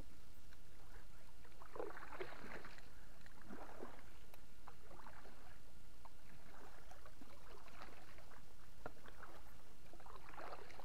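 Double-bladed kayak paddle strokes: the blades dip into calm water and splash, a stroke every second or so.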